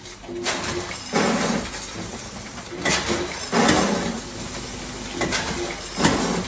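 Ilapak vertical bagging machine cycling. Three times, about two and a half seconds apart, a charge of small hard product rattles down the stainless steel funnel and forming tube, with sharp mechanical clacks and short hums between the drops.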